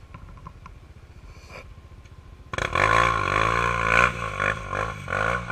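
Sport quad ATV with a Big Gun aftermarket exhaust: a low engine rumble, then about two and a half seconds in the throttle opens suddenly and the engine runs loud, its pitch rising and falling as it revs.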